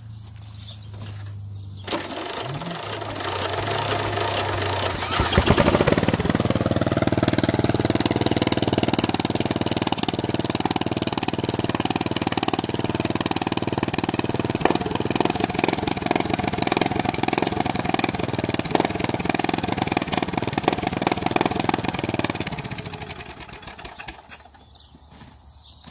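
12-horsepower riding lawn mower engine, exhausting through an old truck air horn, started: it cranks for about three seconds, catches with a loud burst, and runs steadily. It is shut off about three seconds before the end and dies away.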